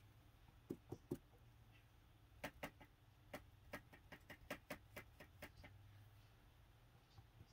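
Light clicks and taps of small hard objects: three soft knocks about a second in, then a quick, uneven run of about a dozen sharp clicks over some three seconds, roughly four a second.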